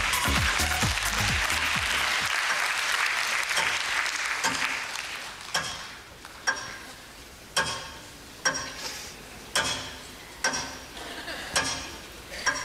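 Studio audience applause that fades out over the first five seconds, then a clock ticking steadily about once a second.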